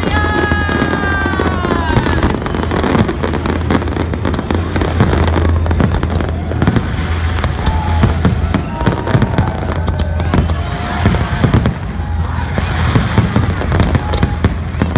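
Aerial fireworks display going off in a continuous stream of rapid bangs and crackling, over a steady low rumble.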